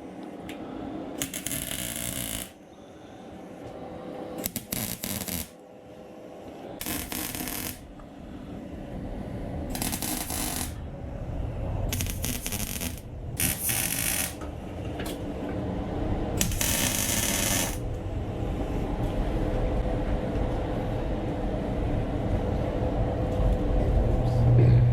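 Welder tacking exhaust tubing: about seven short crackling welds, each about a second long, with pauses between them. Toward the end a low, steady hum grows louder.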